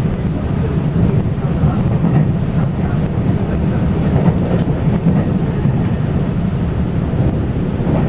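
Taiwan Railway local express train running along the track: a steady, unbroken rumble of wheels on rails, heaviest in the low range.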